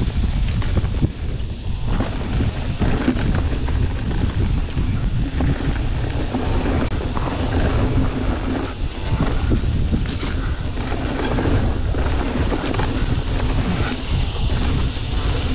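Wind rumbling on a riding mountain biker's camera microphone, mixed with mountain bike tyres rolling over a dirt and leaf-litter trail and the bike rattling and knocking over bumps.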